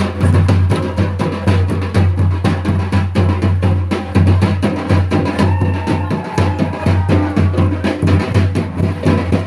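Loud drum-led dance music for a Santali wedding dance, with a fast, dense beat over a heavy low boom. A faint melodic line rises above the drums for a second or two around the middle.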